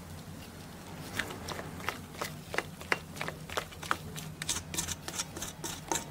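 Hand beating cake batter in a stainless steel bowl: repeated wet slaps and clicks, about three a second, starting about a second in.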